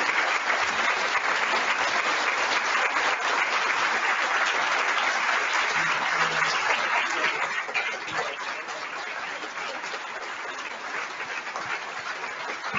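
Audience applauding: many hands clapping. The clapping is loud at first and eases off a little past halfway, carrying on more quietly.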